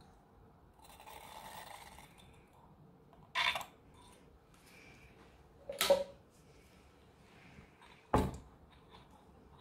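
Handling sounds at a small tin alcohol burner being filled from a syringe: a soft rustle about a second in, then three short knocks about two and a half seconds apart, the last a deeper thunk as the burner is moved.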